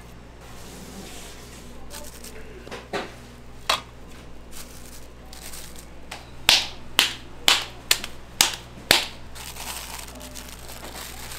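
Tteokgalbi mixture of ground pork and rice cake being slapped down hard by hand: a couple of lighter smacks, then a run of about six sharp slaps half a second apart. The slapping drives the air out so the meat binds together and turns tender.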